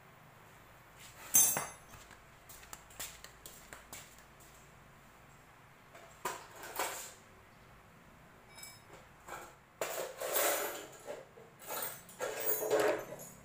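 Metal hand tools and parts being handled: scattered clinks and knocks, a sharp clank about a second and a half in, and longer rattling scrapes near the end.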